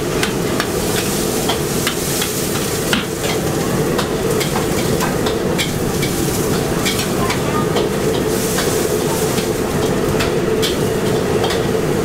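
A metal ladle tossing pad thai rice noodles in a steel wok, clinking and scraping against the pan a few times a second over steady sizzling, with a low hum underneath.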